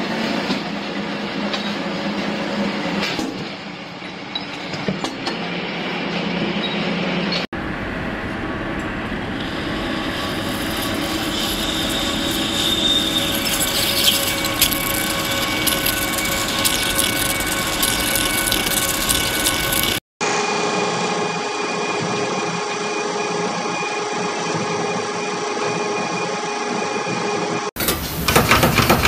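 Metalworking machines running in several separately recorded clips joined by hard cuts. First a drill press boring into metal parts, then machinery with steady high whines, and near the end a resistance spot welder joining a wire grille, with sharp snapping welds.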